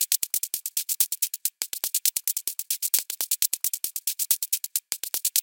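Background electronic music: a fast, even run of crisp hi-hat-like ticks, about eight a second, with an occasional low kick drum and two brief gaps.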